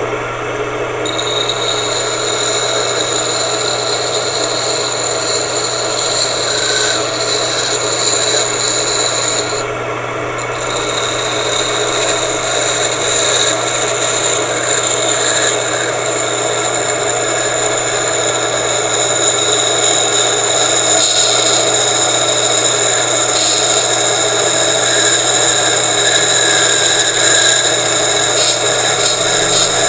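Washing-machine motor running steadily, belt-driving a spinning shaft while a hand-held tool is pressed against the turning metal, making a steady high scraping hiss as it slowly cuts it. The scraping drops out briefly about ten seconds in, while the motor's hum carries on.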